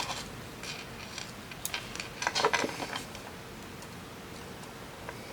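Small hard craft parts (beads, charms and metal findings) clicking and clinking together as they are handled and threaded, in a quick scatter of light taps over the first three seconds, then quiet handling.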